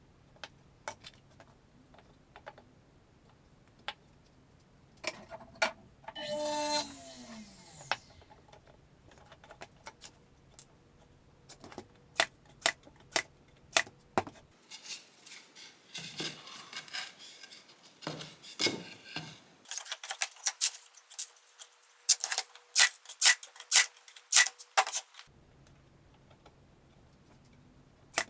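Scattered clicks, taps and knocks from handling and working small wooden boards, coming in quick clusters near the end, with a brief falling pitched sound about six seconds in.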